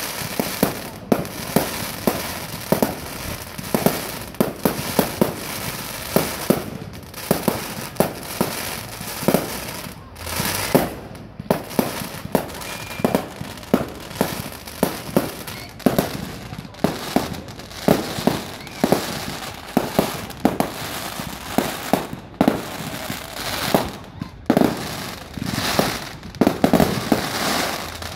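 Aerial fireworks bursting overhead: a rapid, unbroken run of sharp bangs, several a second.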